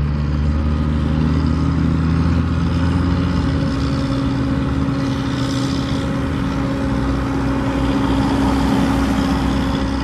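An engine running steadily. Its low hum fades about three to four seconds in, while a steady drone carries on.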